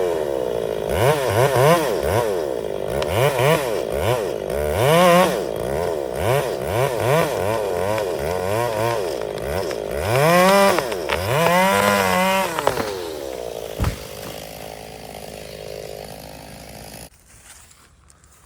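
Ported two-stroke Echo 680 chainsaw revving up and down again and again, each rev rising and falling in pitch about once a second. About ten and twelve seconds in come two longer, higher revs, then the saw dies down. A single knock follows, and the sound drops away abruptly near the end.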